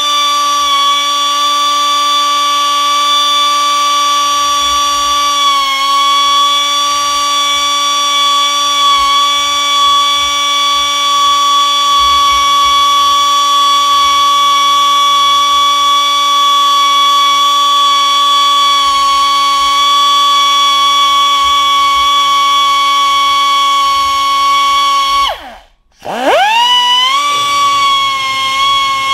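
Air-powered die grinder with a carbide burr running at a steady high whine, grinding old flaking epoxy out of a repaired crack in the engine case. About 25 seconds in it winds down and stops briefly, then spins back up to speed.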